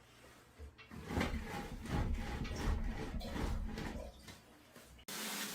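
Handling noise: an uneven low rumble with scattered light knocks and rustles, cutting off abruptly about five seconds in.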